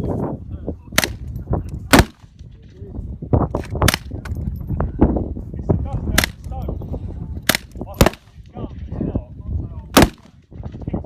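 GSG StG 44 semi-automatic .22 LR rifle firing single shots, about seven sharp cracks at uneven gaps of roughly one to two seconds.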